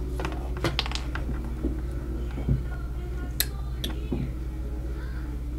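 Plastic building-block toy pieces clicking and knocking as they are handled: a few scattered sharp clicks and a duller knock about halfway through.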